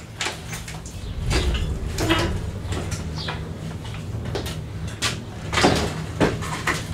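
Irregular metal clunks, clicks and rattles of hand tools and the engine-hoist chain against an engine hanging from an engine crane.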